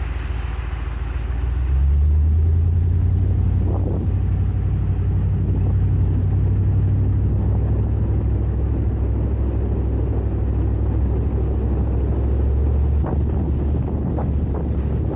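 An off-road vehicle driving on a rough trail: a steady low engine and road rumble, louder from about two seconds in, with a few short knocks from bumps along the way.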